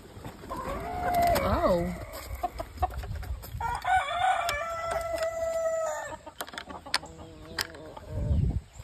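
Roosters crowing: three crows in a row, the middle one long and held, the last one fainter.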